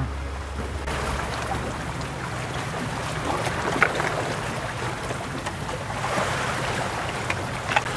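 Steady seaside wind and sea noise, with wind rushing over the microphone.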